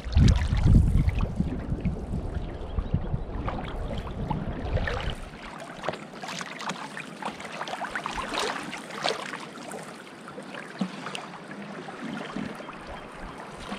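Water splashing and gurgling around a canoe being worked up against a river current, in irregular splashes with no steady rhythm. A low rumble sits under the first few seconds.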